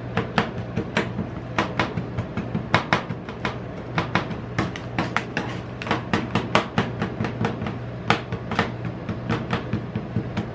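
Two metal spatulas chopping and scraping on a steel cold plate while mixing KitKat into rolled ice cream base: rapid, irregular sharp clacks, a few each second, over a steady low hum.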